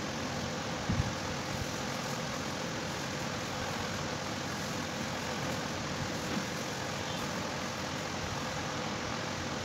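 Steady mechanical hum and hiss of background noise, with a brief low thump about a second in.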